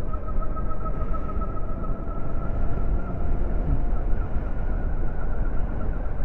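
Wind rushing over the microphone of a 2022 Zero SR electric motorcycle riding at about 30–37 mph, with a faint, steady high whine from its electric drivetrain over the wind; there is no engine sound.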